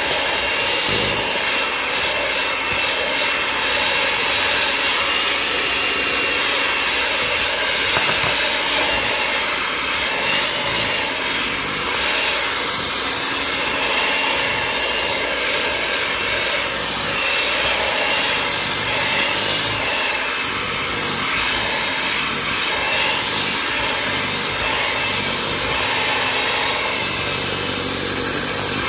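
Electric mixer running steadily, its motor giving an even whine while it beats cake batter.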